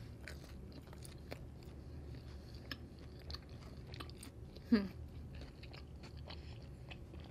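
Close-miked chewing of pizza, with small wet mouth clicks. About two-thirds through comes a short falling hum-like vocal sound from the eater.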